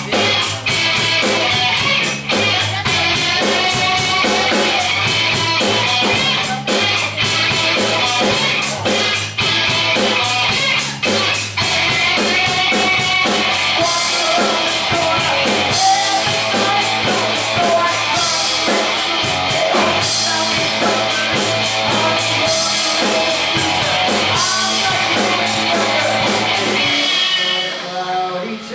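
Rock band playing live: electric guitar strumming over bass and a drum kit, with steady drum hits. Near the end the drums and bass drop out, leaving mostly guitar.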